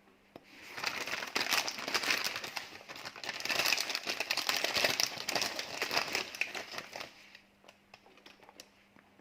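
Plastic packet of ladyfinger biscuits crinkling and rustling as it is handled, loudest in the middle and dying down to a few small crackles near the end.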